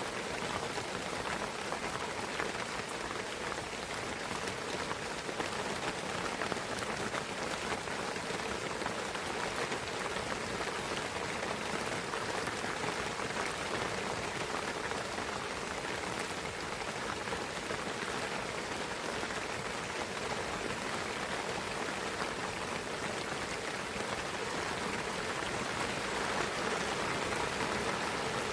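Steady rain falling on a pine forest, with a dense patter of drops on the trees and ground.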